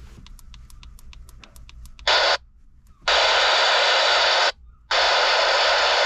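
Handheld CB radio: a quick run of clicks as the channel is stepped up, then loud receiver static hissing in, cutting out and back in abruptly several times, with no voices coming through.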